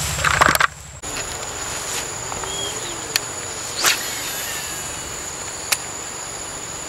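Steady high-pitched drone of insects in pond-side vegetation. A low hum cuts off about a second in, and a few sharp clicks come later.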